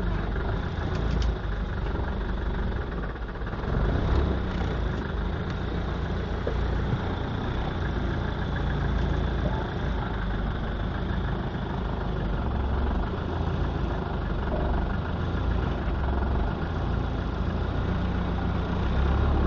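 Mercedes-Benz Unimog engine running steadily, heard from inside its cab as the truck crawls over a rough, rocky track.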